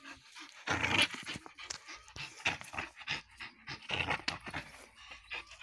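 Young blue-grey Staffordshire terrier panting hard in uneven puffs while gripping and tugging a bungee spring-pole toy.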